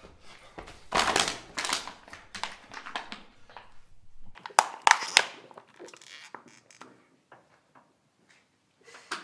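Footsteps crunching grit and debris on concrete stairs, loudest about a second in, with a few sharp taps around five seconds in.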